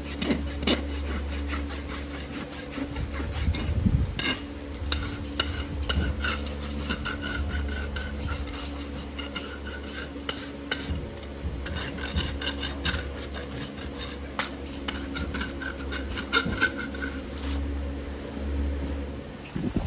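Hoof rasp scraping across a horse's shod hoof in repeated quick strokes, over the steady low hum of a barn fan.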